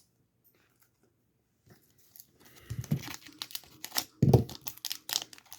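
Foil Pokémon card booster pack being crinkled and torn open by hand, starting about two seconds in, with a couple of dull thumps from handling.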